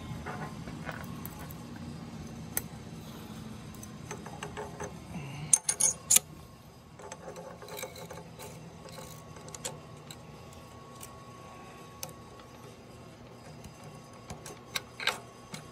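Scattered clicks and clinks of metal tools and parts being handled, with a few louder knocks about six seconds in, over a low steady hum that fades after about five seconds.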